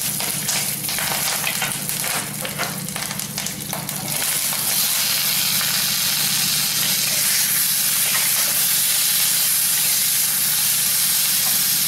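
Curry leaves crackling and spluttering in hot oil with urad dal in a clay kadai as they are stirred. About four seconds in it gives way to a steady, louder sizzling as boiled chickpeas are tossed and stirred in the pan with a perforated ladle.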